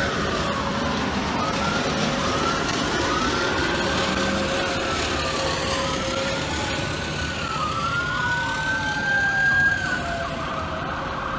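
Several police car sirens wailing at once, their slow rising and falling pitches overlapping and crossing, over a background of vehicle noise.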